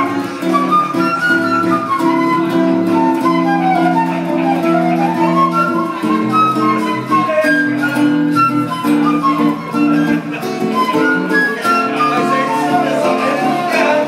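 Bossa nova instrumental solo: a flute plays a quick, running melody over strummed guitar chords.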